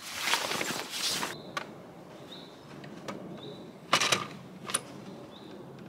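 Handling of an electric bike's seat and battery compartment while the battery is being fitted: rustling at first, then a sharp knock about four seconds in, followed by a lighter one. Faint short high chirps repeat about once a second in the background.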